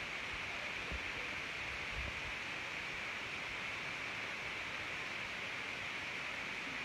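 Steady background hiss, strongest in the upper-middle range, with two faint low bumps about one and two seconds in.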